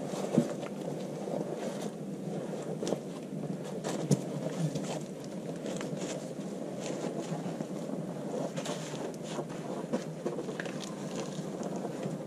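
Steady wind rushing on the microphone, with scattered sharp cracks and snaps; the loudest come about half a second in and about four seconds in.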